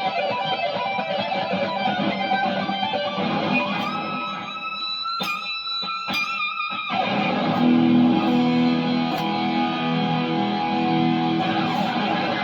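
Fender Thinline electric guitar played solo. It runs quick lead notes, then a held note bent upward with a couple of sharp clicks about five and six seconds in, then sustained chords ringing out through the last few seconds.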